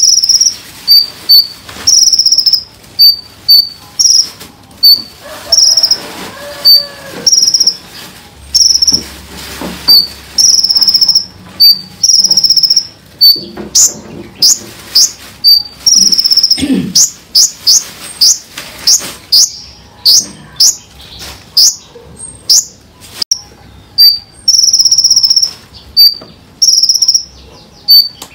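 Small songbird (burcil) singing its 'tembakan' song, for bird training. Short shrill high chirps repeat about twice a second, and a rapid run of sharp, downward-sweeping notes comes about halfway through. The song is set over a faint background of flowing water.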